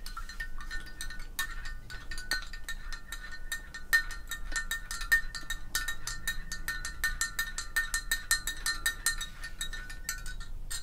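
Metal spoon stirring tea in a glass measuring jug, clinking quickly against the glass with a light ringing; the clinking stops shortly before the end.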